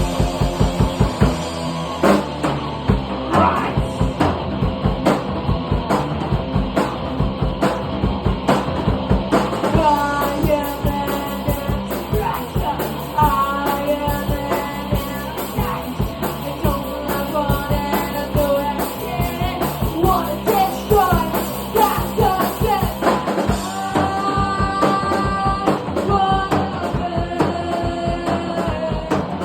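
Punk rock song with a steady drum-kit beat, and a sung vocal that comes in about ten seconds in.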